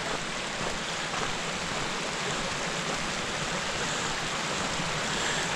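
Stream water rushing steadily over rocks through a breached dam, getting slightly louder near the end.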